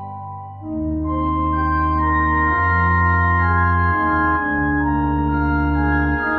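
Organ music playing slow, sustained chords that change every second or two; it softens briefly at the start, then swells back in.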